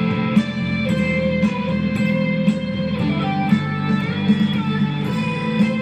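Stratocaster-style electric guitar playing a lead line over a sustained low chord, with notes bent up in pitch about halfway through.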